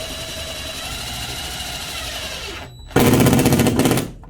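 Cordless drill with a Phillips bit driving a threaded drywall anchor into drywall at a slight angle. The motor runs steadily for about two and a half seconds, stops briefly, then runs again in a louder, coarser burst of about a second.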